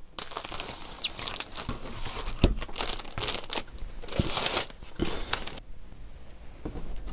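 Clear plastic bag crinkling and rustling as a circuit board is slid into it and handled, stopping about five and a half seconds in.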